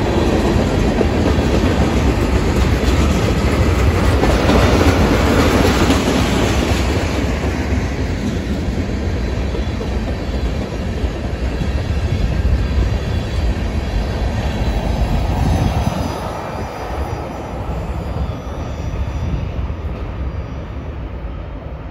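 Freight train's tank cars and covered hoppers rolling past, steel wheels running on the rails. The noise fades over the last several seconds as the end of the train moves away.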